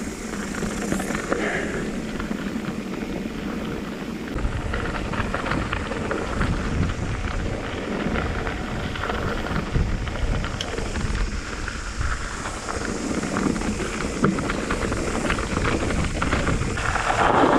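Mountain bike tyres rolling fast over a gravel track, crunching and rattling over loose stones, with wind rumbling on the microphone from about four seconds in.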